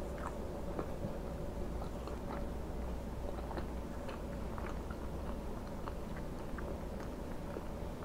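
Close-miked chewing of a mouthful of sausage patty, with small wet mouth clicks scattered all through. A steady low background hum runs underneath.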